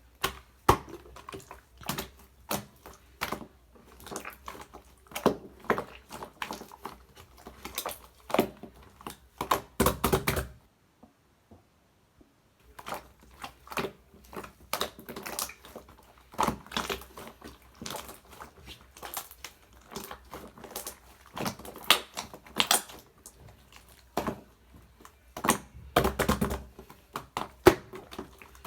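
Mint marbled slime being squished and stretched by hand, making rapid irregular sticky clicks and pops. The sound stops for about two seconds roughly a third of the way through, then resumes.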